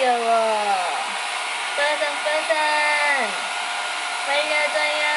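Hand-held electric hair dryer blowing steadily while drying a cat's fur. Over it come three long drawn-out calls, each held level and then falling in pitch at its end.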